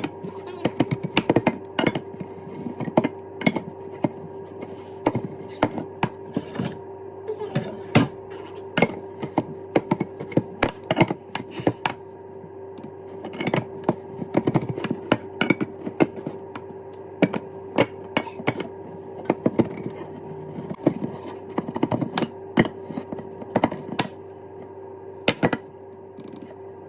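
A can of evaporated milk being forced open by hand: many irregular sharp clicks and knocks of metal, a struggle with a stubborn can. A steady hum runs underneath.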